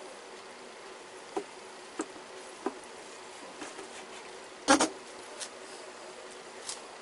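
Cleaver blade knocking down through barbecued chicken onto a cutting board: a few light chops, then a louder double chop a little past halfway. A faint steady hum runs underneath.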